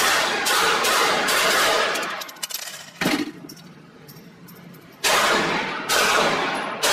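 .22 LR pistol fired in a quick string of shots, each with a long echoing tail under a concrete ceiling. The shooting stops for about three seconds, with a couple of small metallic clicks in the gap, then starts again with single shots about a second apart.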